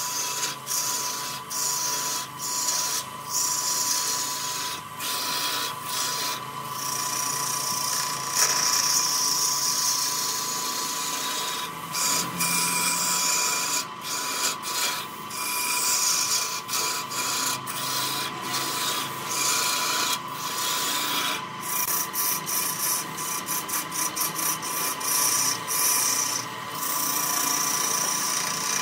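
Wood lathe turning a glued-up laminated blank as a turning chisel cuts it: a steady hiss of wood being cut, with a steady whine underneath. The cutting noise breaks off briefly every second or two as the tool lifts, and several times a second for a few seconds past the middle.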